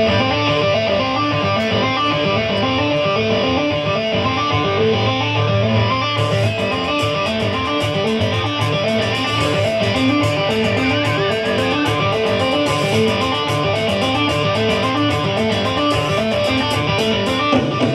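Music with a repeating guitar figure, starting right at the beginning and running at an even level. Sharp ticks join about six seconds in.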